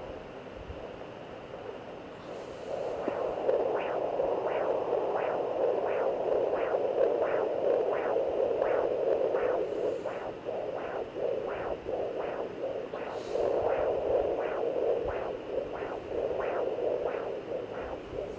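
Handheld fetal Doppler's speaker hissing with static, then from about three seconds in a rhythmic whooshing pulse at about two beats a second: a heartbeat picked up by the probe.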